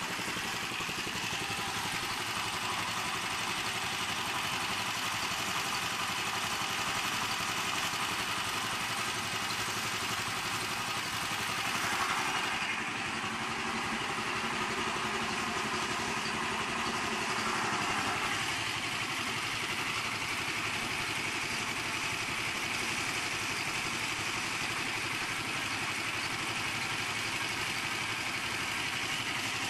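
Honda 8 HP single-cylinder engine running steadily, fed HHO gas from two dry cells.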